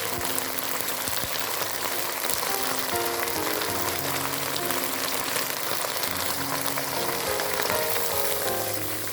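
Food frying with a steady crackling sizzle, under background music playing a simple melody.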